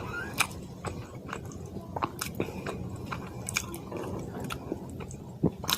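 Close-miked chewing and mouth smacking of a person eating fish curry with white rice: irregular wet clicks and smacks, several a second, with a couple of louder ones near the end.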